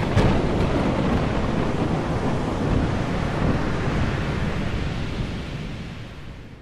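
Stormy-sea sound effect: a steady wash of waves and wind with a heavy low rumble, fading out over the last couple of seconds.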